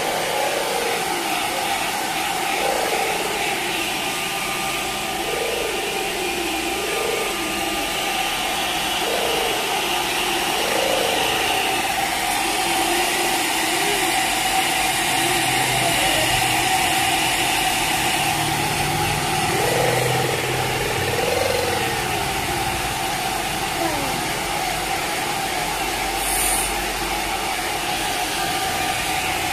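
Steady whirring hum of a small electric motor, with a string of short rising-and-falling mews from a kitten, one every second or two, that die away after about twenty seconds.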